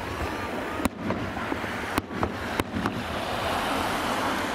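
Aerial firework shells bursting: a series of sharp bangs, about five in the first three seconds, then a steady noisy hush as the bursts fade.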